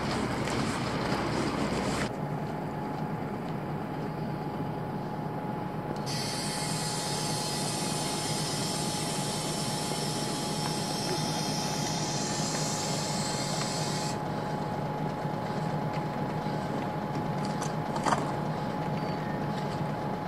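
Large diesel vehicles idling, a steady hum under a constant whine. A high hiss runs over it for several seconds in the middle, and there is a single sharp click near the end.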